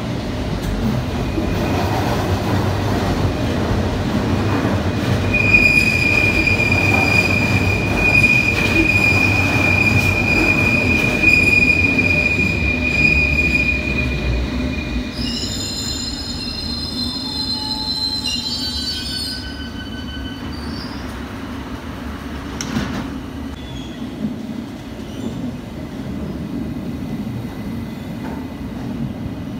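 London Underground S Stock train running into an underground platform: a steady rumble of wheels on track, with a long steady high squeal from about five seconds in, then a cluster of several higher squeals around the middle as it slows, and the rumble easing off afterwards.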